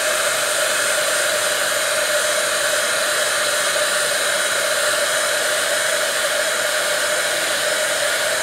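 Handheld hair dryer running steadily, blowing over wet watercolour paint to dry it: a steady rush of air with a constant motor hum.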